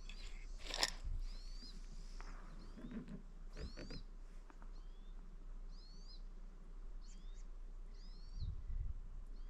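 A small bird calling repeatedly: short, high, curved chirps every half second to a second, with a couple of sharp knocks about a second and four seconds in.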